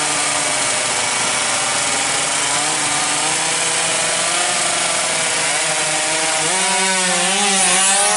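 Two-stroke 116 cc underbone drag bikes (Yamaha F1ZR) held at high revs on the start line, a steady buzzing drone. About six and a half seconds in, the pitch jumps and climbs in steps as they launch off the line.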